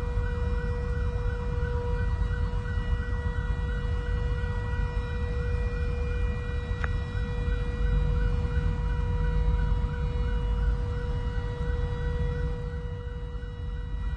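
Alarm siren sounding steadily, with a fast warble about three times a second, over a low rumble, during a fire at a power-station substation. A single sharp click is heard about halfway through.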